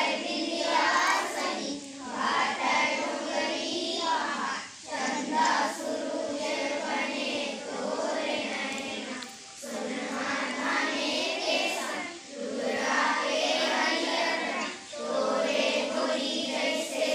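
A group of schoolchildren singing a morning assembly prayer together in chorus, in sung phrases a few seconds long with brief breaks between them.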